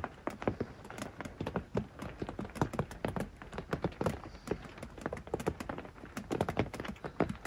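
Irregular light taps and knocks, several a second and varying in strength.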